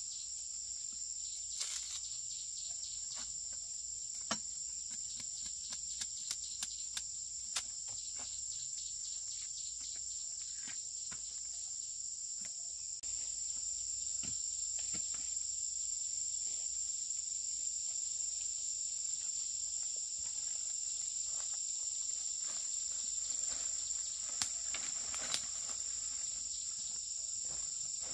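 Insects chirring in a steady, high-pitched chorus in the forest. Scattered light clicks and knocks come through it, several in the first eight seconds and two sharper ones near the end.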